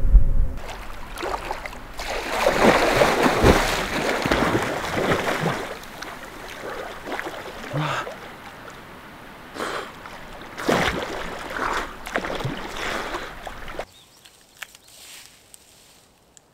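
Water splashing and sloshing in irregular bursts, like someone swimming, stopping suddenly about two seconds before the end.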